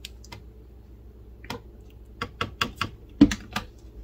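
A metal measuring spoon clinking against a plastic blender jar while a plastic flip-top bottle cap is snapped shut: a few scattered clicks, then a quick run of sharp taps, about five a second, in the second half.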